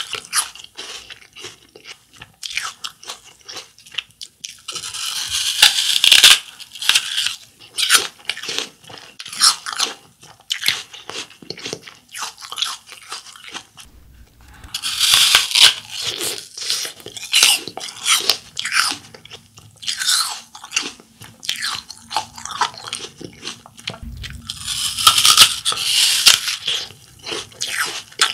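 A crisp raw apple bitten into and chewed: three loud crunching bites about ten seconds apart, with a steady run of smaller chewing crunches between them.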